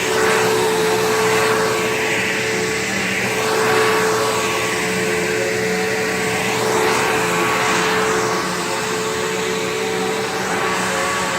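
Bissell PowerGlide Platinum bagged upright vacuum cleaner running, a steady motor whine over the rush of air. The sound rises and falls about every two seconds.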